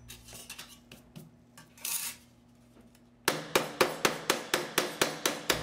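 Silver sheet handled on a metal bench block, then, about three seconds in, a fast run of leather-mallet blows, about four or five a second, flattening the stamped sterling silver sheet against the block.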